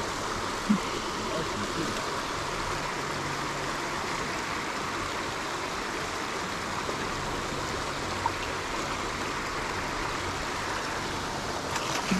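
Steady rush of running water. There is a short knock under a second in, and near the end a splash as a hooked fish breaks the surface.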